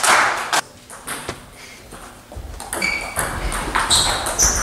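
Table tennis rally: the celluloid ball clicks off bats and table with short ringing pings about twice a second, starting near the middle after a quieter pause, with players' shoes thudding on the hall floor. A brief loud noise sounds at the very start.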